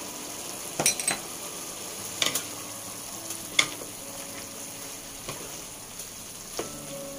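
Spaghetti sizzling in a hot wok while two wooden spatulas toss it, with about half a dozen sharp knocks of the wooden spatulas against the pan.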